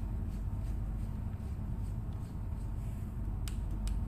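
Steady low rumble, with two short sharp clicks near the end as a Walther P22 pistol is handled during reassembly.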